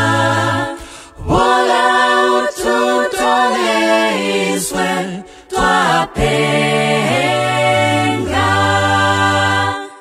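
A cappella vocal group singing in harmony, a low bass part under higher voices, with short breaks between phrases.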